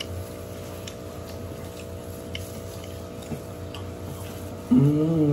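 Quiet eating at the table: faint clicks and handling sounds over a steady background hum. Near the end comes one short vocal sound from one of the eaters, rising then falling in pitch, the loudest thing here.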